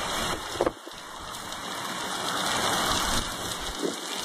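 Hurricane wind and driving rain rushing and gusting over the phone's microphone, swelling to its loudest about three seconds in. A couple of sharp knocks come just over half a second in.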